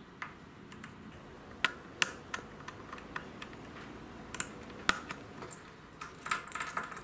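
Small, irregular clicks and taps of a stainless steel watch buckle, spring pin and wooden strap links being handled and fitted together, with the sharpest clicks about two and five seconds in.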